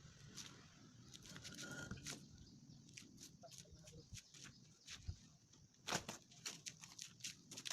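Faint rustling and flapping of tent fabric as it is handled, with scattered short clicks and crackles that come thicker in the second half.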